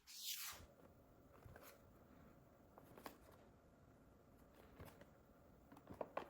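Hands handling a small plastic product and its packaging: a brief scrape or rustle at the start, then faint light clicks and taps, with a quick cluster of clicks near the end.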